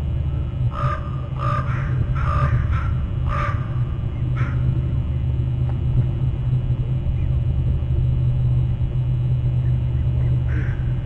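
Stirred-up crows cawing: a quick run of about six harsh caws in the first four and a half seconds, then a pause, with one fainter caw near the end. A steady low rumble runs underneath and is the loudest part.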